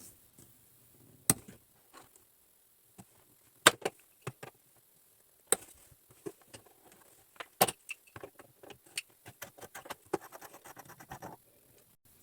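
Sharp clicks and clinks of small metal faucet parts and tools being handled, a few loud separate ones, then a run of quicker, lighter clicks from about eight to eleven seconds in.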